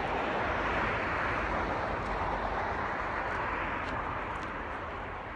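A car passing on the road, a rush of tyre noise that is loudest about a second in and slowly fades.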